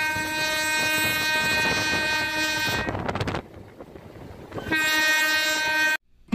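Train horn blowing a long, steady blast of about three and a half seconds, then after a short gap a second, shorter blast that cuts off suddenly. Running train noise fills the gap.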